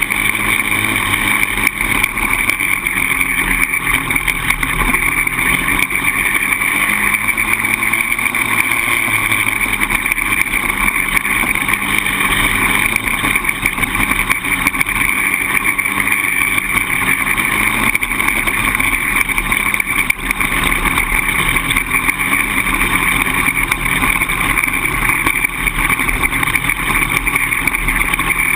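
Polaris Outlaw 525 quad's single-cylinder four-stroke engine running steadily as the quad is ridden, without pause.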